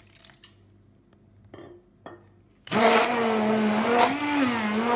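Electric countertop blender switching on about two and a half seconds in and running loud, its motor hum wavering in pitch as it blends pear with lemon concentrate; before that, a couple of light knocks.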